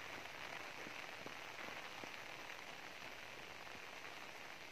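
Steady rain falling, an even hiss with a few separate drops ticking now and then.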